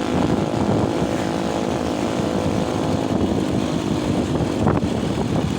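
A vehicle engine droning steadily at speed, with road and wind noise, and a short knock near the end.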